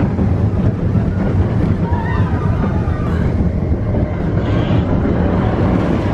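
Expedition Everest roller coaster train running along its track: a loud, steady low rumble with wind buffeting the microphone.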